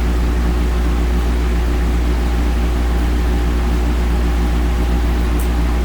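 A steady low hum with a faint buzz above it.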